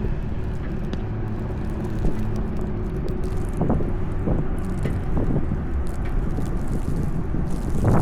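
Wind buffeting the microphone over city street traffic, with a vehicle engine's hum fading out about two to three seconds in, followed by scattered short knocks.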